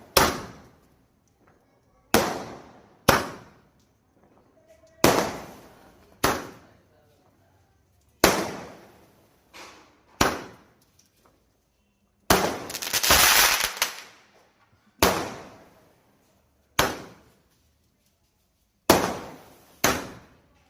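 A 30-shot aerial firework cake firing: loud sharp bangs about every one to two seconds, each dying away briefly, about a dozen in all, with one longer burst lasting over a second about twelve seconds in.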